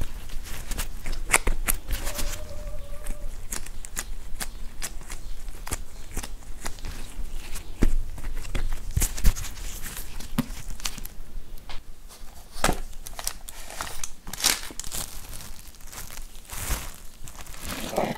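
Gloved hands shaping whole wheat bread dough on a wooden board: the dough pressing, folding and slapping, with the crinkle of disposable plastic gloves, heard as a string of small irregular clicks and crackles.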